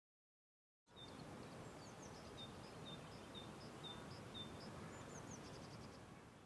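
Faint outdoor ambience that starts about a second in after dead silence: a steady low background noise with a small songbird repeating short high chirps about twice a second.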